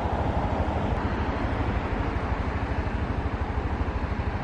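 Steady road and traffic noise with a low rumbling underneath, with a short click about a second in.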